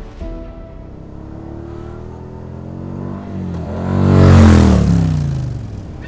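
Quad bike (ATV) engine approaching, revving and passing close by. It is loudest about four seconds in, and its pitch drops as it goes away.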